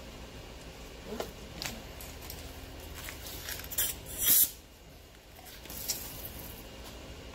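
A short hiss of compressed air, about half a second, from the air hammer or its air line about four seconds in, with a few faint clicks and knocks of tools around it.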